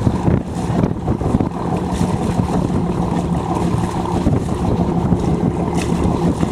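A converted traditional fishing boat's engine running steadily, with wind buffeting the microphone.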